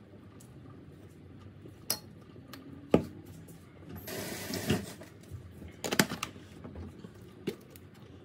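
A spoon clinking and knocking against a plastic jar and a stainless steel pan while chili powder is scooped in: scattered sharp clicks, the loudest about three seconds in and a quick cluster about six seconds in, with a brief scraping rustle about four seconds in.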